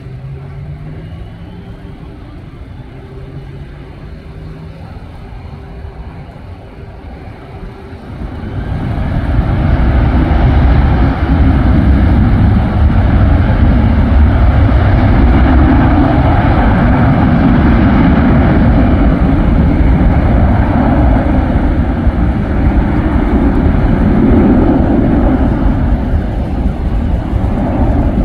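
Jet engines of an American Airlines narrow-body airliner on the runway: a loud roar sets in suddenly about eight seconds in, with a deep rumble under a broad hiss, and holds steady as the jet rolls past.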